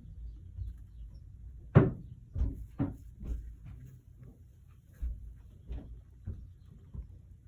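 Light knocks and clatter of tools or pieces being handled on a work table, about eight in all, the loudest a sharp knock about two seconds in.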